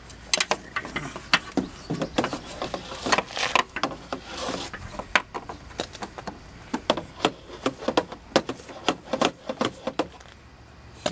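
Irregular plastic clicks and knocks of fingers working the bulb wire-harness connector behind a 2004 Mazda 6 headlight assembly, trying to unplug it; the clicking dies down near the end.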